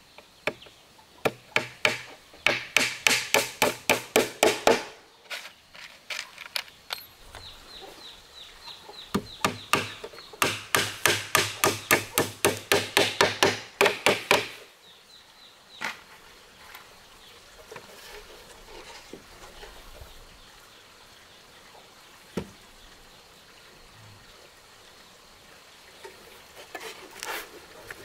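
Hand tool chopping into a wooden post with quick, even blows, about five a second, in two runs, the second longer, with scattered single knocks between and after.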